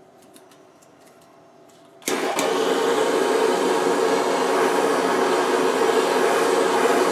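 A few faint clicks, then about two seconds in a hand-held gas torch lights suddenly and burns with a steady hiss, heating a fluxed copper pipe fitting for soldering.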